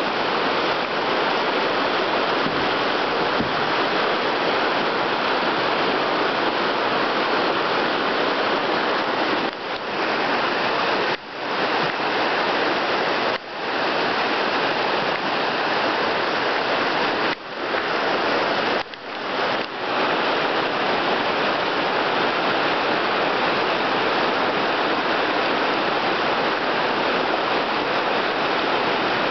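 Whitewater rapids rushing steadily over rocks in a narrow, fast stream, with a few brief dips in level partway through.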